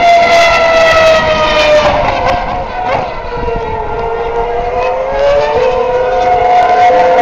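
2009 Formula One cars' 2.4-litre V8 engines at high revs, a high-pitched wail. The pitch sags and breaks up two to three seconds in, then climbs again over the following seconds as a car accelerates, and a higher note comes back near the end.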